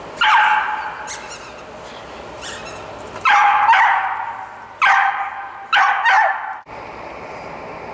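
Small dog barking: four loud, high-pitched barks spread over several seconds, the last two close together.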